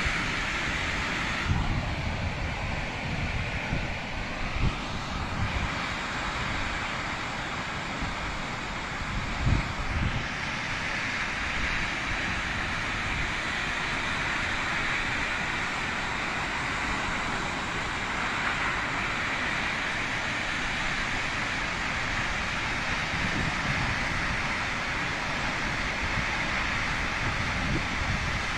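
Waterfall running with a steady rush of falling water, with a few brief low thumps in the first third.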